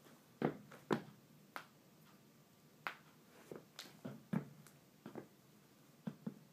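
Basketball sneakers (Nike LeBron 9 Lows) stepping, shifting and scuffing on a wooden floor: about a dozen short, irregularly spaced taps and scuffs.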